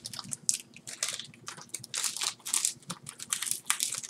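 Foil wrapper of a Yu-Gi-Oh booster pack crinkling in irregular, rapid bursts as fingers work it open.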